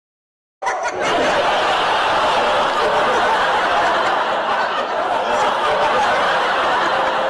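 A crowd laughing and talking loudly all at once, a dense, steady din. It starts abruptly a little over half a second in.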